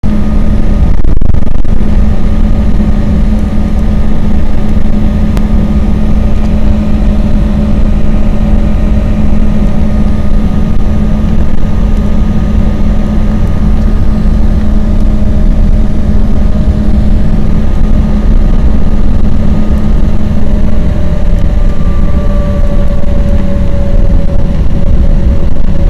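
Embraer E-190 airliner's GE CF34 turbofan engines running while the jet taxis, heard inside the cabin beside the wing: a steady rumble with a steady engine hum and whine. A little past the 20-second mark the engine tone shifts slightly.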